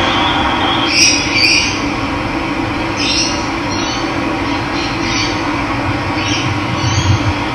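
Steady rush of running water, with a bird giving short, high calls every second or so over it.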